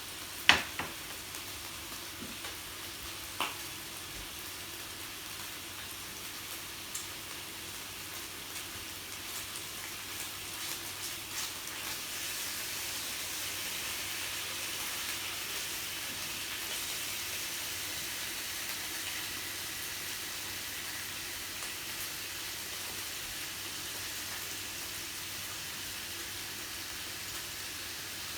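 Meat sizzling on a yakiniku grill: a steady hiss that grows a little louder partway through. There is a sharp tap about half a second in and a lighter one a few seconds later.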